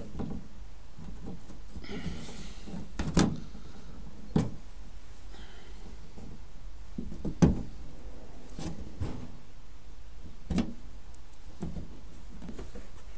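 Plastic push-in trim clips snapping out one after another as a van's rear-door trim panel is prised off the metal door: several sharp snaps at uneven gaps, the loudest about halfway through.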